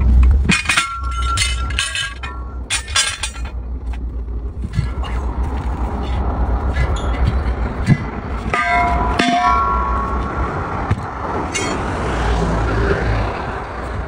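Sharp metal clinks and knocks of a steel tyre bar working against a truck wheel rim, densest in the first few seconds, over a steady low rumble of highway traffic. A brief squeal comes about nine seconds in.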